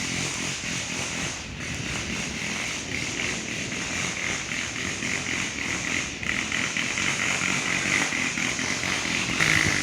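Small gasoline engine of yard equipment running steadily without a break.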